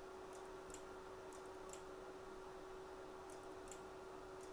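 Quiet workbench room tone: a faint steady hum with faint, sharp ticks about every third of a second.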